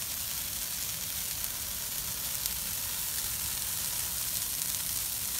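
Large bonfire of dried Christmas trees burning: a steady crackling hiss with a few sharp pops.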